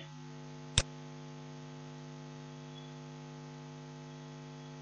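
Steady electrical mains hum: a low, even buzz with several fainter tones stacked above it. A single sharp click cuts through it about a second in, and another comes at the very end.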